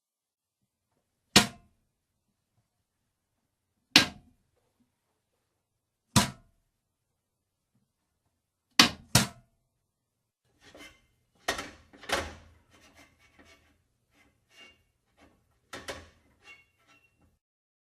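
Sharp knocks: three single hits a couple of seconds apart, then a quick double knock, followed by a busier run of lighter clicks and knocks.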